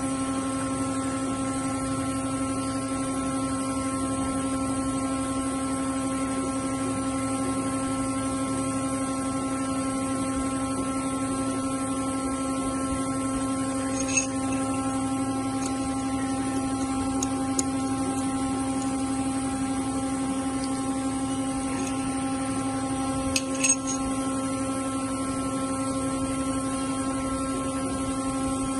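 Steady electrical hum made of several held tones that never change, with a few faint clicks about a third of the way in and again about two-thirds of the way in.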